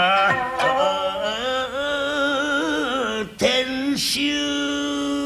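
A male rōkyoku (naniwa-bushi) singer drawing out a long melismatic sung vowel with wavering pitch, breaking off briefly a little past three seconds in and then holding a steady note.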